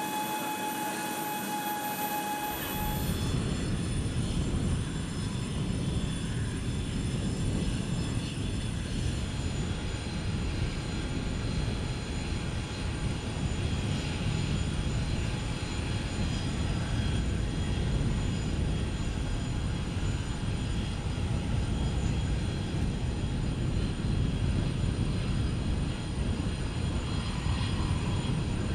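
A steady humming tone gives way about three seconds in to the continuous low rumble of jet aircraft engines running on an airfield apron, with a steady high-pitched turbine whine over it.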